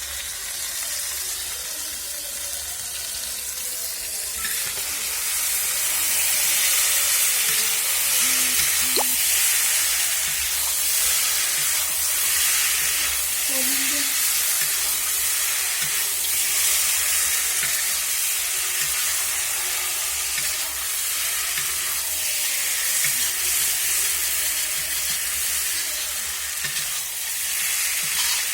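Food frying in a kadhai, a steady sizzle, with a few faint knocks of stirring now and then.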